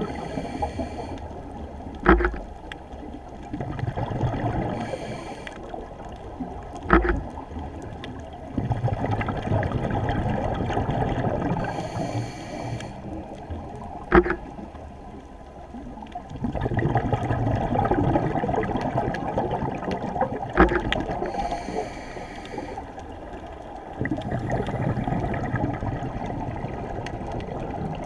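Scuba diver breathing through a regulator, heard underwater through a GoPro housing: a short hiss on each inhale, then a long bubbling rumble on each exhale, about four breaths in all. Four sharp knocks come at irregular moments.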